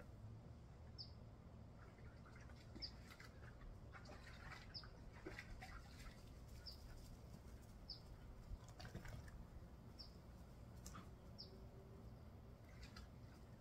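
Faint backyard ambience: a bird repeats a single short, high, falling chirp every second or two. Faint irregular splashing and dripping from dogs moving in a shallow plastic pool lies under it.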